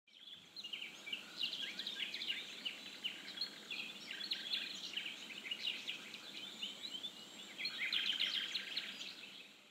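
A chorus of small birds chirping and twittering together, many short overlapping calls, fading in at the start and out near the end.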